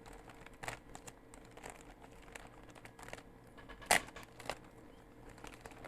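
Plastic packaging being handled and crinkled as a parcel is opened: faint scattered rustles and small crackles, with one sharper crackle about four seconds in.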